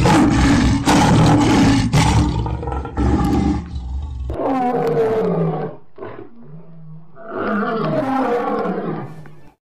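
Loud lion roar sound effects: one long roar of about four seconds, followed by two shorter roars that fall in pitch.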